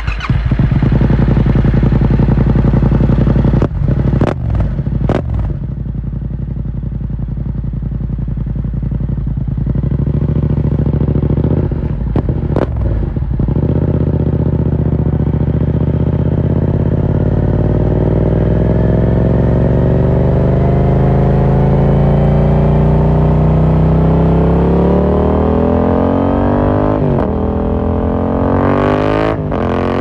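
A 2018 Yamaha MT-07's 689 cc parallel-twin, breathing through an Akrapovic carbon full exhaust with the dB killer removed, starts up loud and runs steadily at low revs. The bike then pulls away, its pitch rising slowly for about thirteen seconds before a drop near the end at an upshift. A few sharp knocks come through a few seconds in and again near the end.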